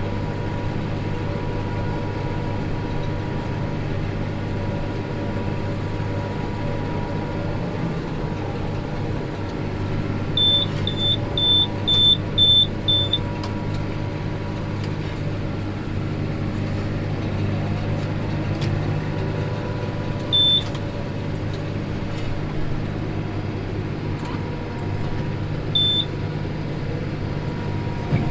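Tractor engine running steadily while round-baling, with a string of about seven short high electronic beeps about ten seconds in and two single beeps later.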